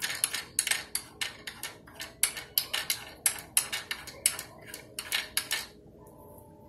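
Quick, uneven clicking, about three or four sharp clicks a second, that stops near the end: small parts of a Singer sewing machine being handled as it is threaded.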